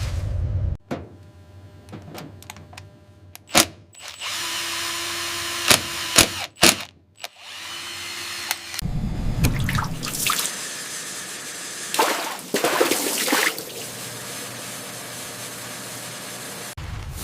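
A string of abruptly cut workshop tool sounds: sharp clicks and knocks, stretches of hissing, and drill-like power-tool whirring.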